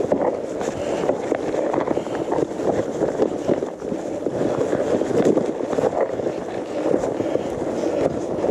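Gravel bike rolling over a stony, leaf-covered trail: the tyres crunch over stones and dry leaves in a dense, steady crackle of small knocks and rattles.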